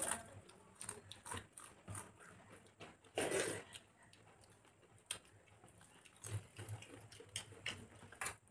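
People eating rice and khichuri with their hands: wet chewing and lip smacking in a run of short clicks and smacks, with one louder, longer mouth sound about three seconds in.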